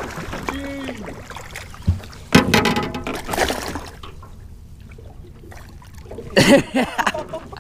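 Water splashing as a hooked largemouth bass thrashes at the side of the boat and is grabbed by hand, with short wordless exclamations. The loudest splashing comes a little after two seconds in.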